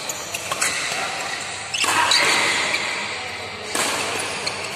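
Badminton doubles rally in a large sports hall: sharp racket hits on the shuttlecock and players' footwork on the court floor, with a louder stretch of noise from about two seconds in.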